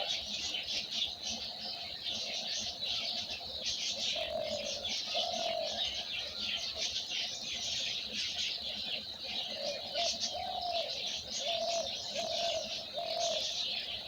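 A flock of small birds chirping densely and without pause, with low cooing notes from a dove coming in two spells, about four seconds in and again from about ten seconds.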